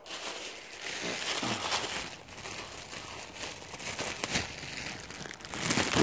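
Plastic packaging crinkling and rustling as it is handled and pulled at, getting louder near the end.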